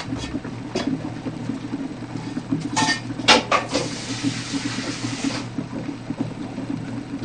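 Dishes and metal cookware clattering, with a few light clicks and then a burst of clatters about three seconds in, followed by a tap running for about a second and a half, over a steady low hum.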